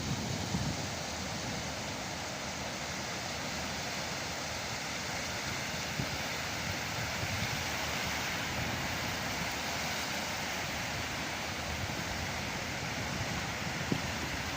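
Sea surf washing and breaking steadily, a constant rush of waves, with some wind buffeting the microphone.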